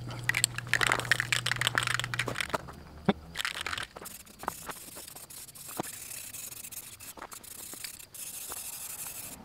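Aerosol spray-paint can (Krylon Fusion All-in-One) shaken in a quick rattle of clicks, then sprayed in hissing passes with short pauses between them.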